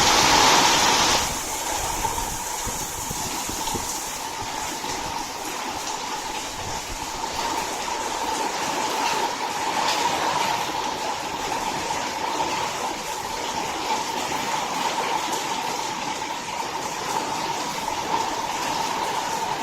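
Strong storm wind blowing hard, a steady rushing with a whistling tone running through it, loudest at the very start.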